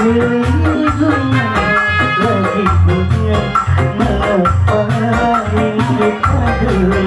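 Live dangdut band playing through a PA: kendang hand drums keep a steady beat under keyboard and electric guitar, with a melody line over the top.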